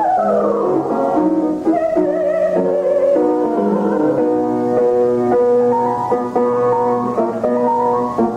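A soprano sings an operatic aria with piano accompaniment, holding a note with vibrato. About halfway through the piano carries on alone with evenly repeated chords.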